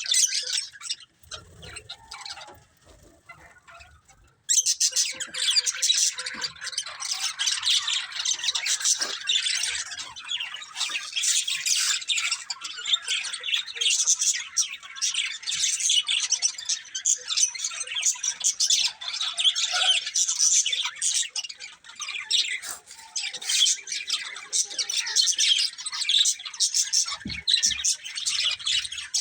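Budgies chirping and chattering in rapid, overlapping high calls and squawks. There is a quieter break of about three seconds near the start, then the chatter runs on without pause.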